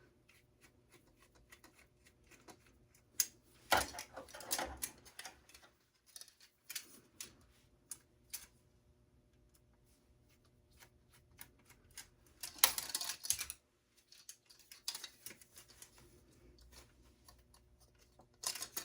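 Small clicks, taps and scrapes of metal and plastic computer parts being handled and pried apart, with louder clattering about four seconds in and again about twelve seconds in.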